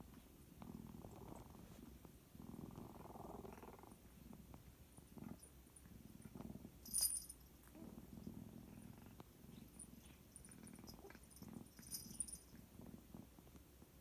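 A sleeping white cat making faint, rasping, purr-like breath noises in slow rhythmic pulses. The owner can't tell whether they are sleep-talking or snoring and calls them just odd noises. Two sharp clicks come about five seconds apart.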